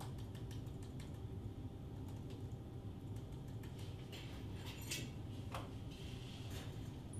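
Computer keyboard keys clicking irregularly as someone types, with a few louder scrapes around the middle, over a steady low hum.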